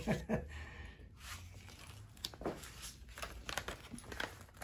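Faint rustling and crinkling of packaging being handled, with a few small clicks scattered through.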